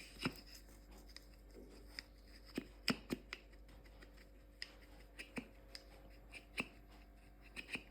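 Pump rotor, out of its housing, being knocked and rocked by hand: a dozen or so sharp, irregular clacks, the loudest about three seconds in. The rotor moves freely back and forth, and the owners put the pump's knocking down to this play.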